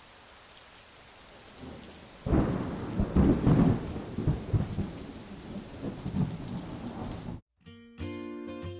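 Steady rain with thunder rolling in about two seconds in, in long low rumbles, cut off suddenly about seven seconds in. Music starts near the end.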